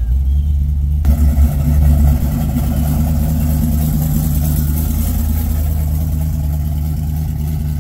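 Classic Chevrolet C10 pickup's engine idling steadily with a low, even rumble.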